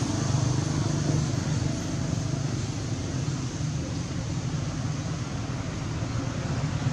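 Steady outdoor background noise: a low rumble with a hiss over it and no distinct events.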